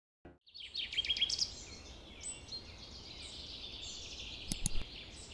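Several birds singing and chirping together, a dense chorus of high calls over a steady outdoor hiss, with two sharp knocks about four and a half seconds in.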